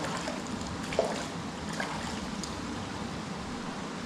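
Steady rush of running water, with a sharp knock about a second in and a lighter click just under two seconds in.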